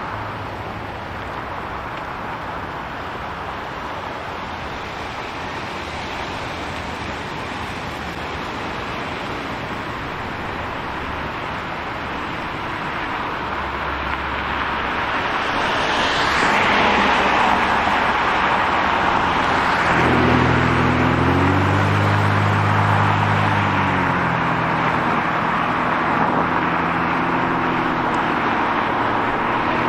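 City street traffic: steady road noise, with a vehicle passing about halfway through, then a vehicle engine's pitched hum that shifts in pitch and settles into a steady drone for the rest.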